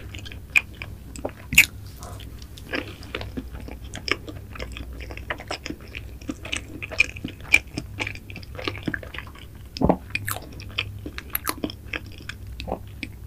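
Close-up mouth sounds of a person chewing a mouthful of soft mango cream cake: many short, irregular clicks from the lips and mouth, with a louder one about a second and a half in and another about ten seconds in.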